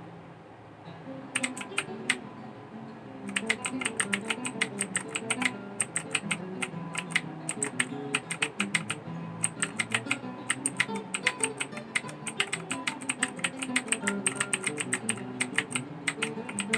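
Rakk ILIS mechanical keyboard being typed on: a few separate key clicks, then fast continuous typing about three seconds in that stops just before the end. Background music plays underneath.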